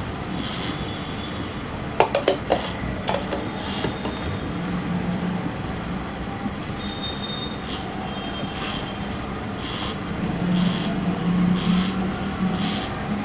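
Microwave oven running on convection preheat, a steady low hum. A few sharp clicks about two seconds in and light scrapes later from kitchen utensils being handled.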